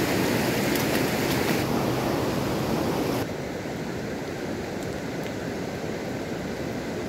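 Fast-flowing river water rushing steadily. About three seconds in it drops abruptly to a quieter, less hissy wash.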